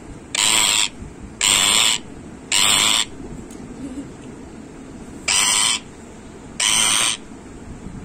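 Green parakeet screeching five times, each a harsh, loud call of about half a second. Three come about a second apart, then after a pause of about two seconds two more follow. These are the cries of an angry parrot.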